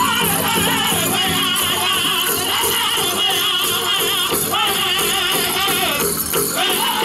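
Pow wow drum group singing in high, wavering voices over a steady drumbeat, with bells jingling on the chicken dancers' regalia.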